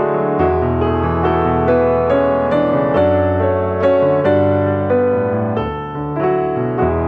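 Background piano music: a melody over low bass notes that change every second or two.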